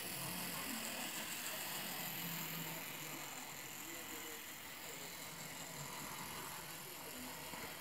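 Model Terrier 0-6-0 tank locomotive's small electric motor whirring steadily as it runs with its coach and tank wagon rolling along the track, slightly quieter after about three seconds as the train moves away.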